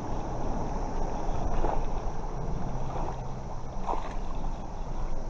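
Steady rush of river current flowing over shallow rocks.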